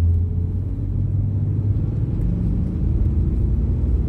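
Steady low rumble of a car's engine and tyres on the road, heard from inside the cabin while driving at a steady speed.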